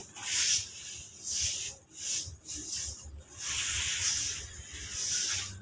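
Hands crumbling and squeezing dry, powdery red dirt, the grains rubbing and falling back in gritty, hissing swells that come and go about once a second.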